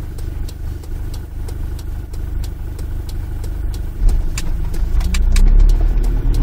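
Kia Sorento diesel engine heard from inside the cabin, running steadily at low revs, then pulling away about four seconds in with its note rising and getting louder. A steady ticking about three times a second runs underneath.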